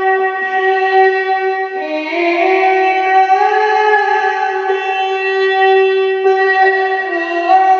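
A male Qur'an reciter's voice in long melodic held notes, sung into a microphone. The pitch rises about two seconds in, holds, and falls back near the end.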